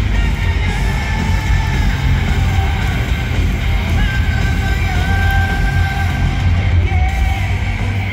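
Live rock band playing loud through a stadium PA, heard from the crowd: heavy bass and drums, electric guitar and long held notes, with a voice yelling or singing over it.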